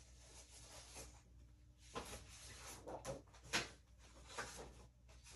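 Faint rustling of paper with several soft knocks and clicks, the sharpest about three and a half seconds in: someone searching through papers and craft supplies for a misplaced piece of cardstock.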